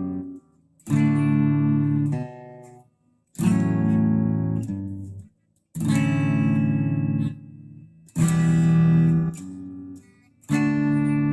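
First Act jazz-style electric guitar through an amp on a clean tone: five chords strummed and left to ring, each cut short about two seconds apart.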